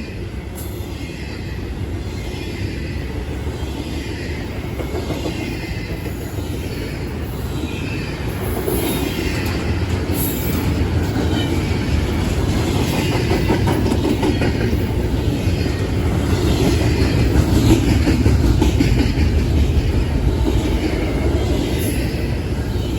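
Long CSX double-stack intermodal freight train rolling past: a steady rumble of steel wheels on rail with scattered clicks, swelling louder about halfway through and easing slightly near the end.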